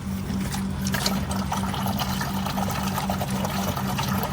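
Liquid being poured into a container, a steady trickle that starts about a second in and keeps going, over a constant low hum.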